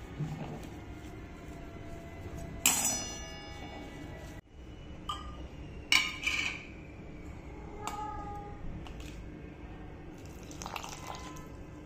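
Stainless steel mixing bowl clinking sharply about five times, each clink ringing briefly, over a low steady hum, as flour and vegetables are mixed in it and a glass jar is brought to its rim.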